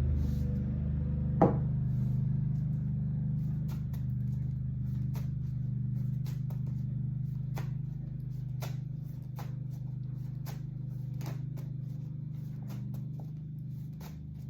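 A string of short, sharp clicks and taps over a steady low hum. One loud click comes about a second and a half in, and lighter ones follow roughly once a second.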